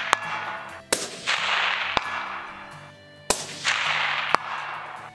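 Suppressed bolt-action rifle fired repeatedly from a bench, each shot a sharp crack followed by a short hiss, over faint backing music.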